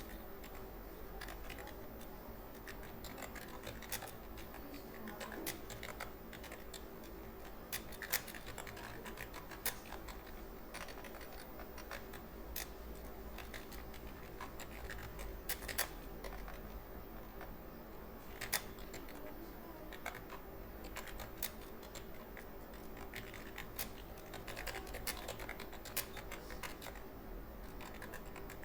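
Computer keyboard keys clicking rapidly and irregularly, as in fast touch-typing during a typing speed test, with a few sharper key strikes now and then.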